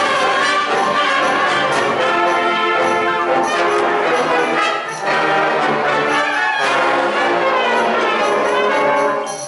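A full wind band playing loud, sustained chords led by trombones and trumpets. The sound dips briefly about five seconds in, and a sharp loud accent hits at the very end.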